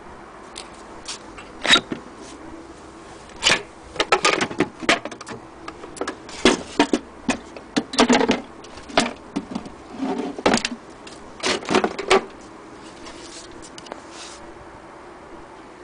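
Wooden carrying-case cover of a hand-crank Singer sewing machine being unlatched and lifted off: a string of irregular clicks, knocks and scrapes, which stop a few seconds before the end.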